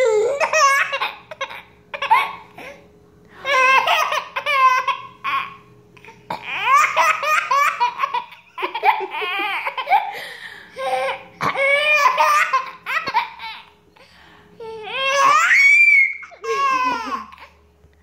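A baby laughing in about seven high-pitched bouts, separated by short pauses.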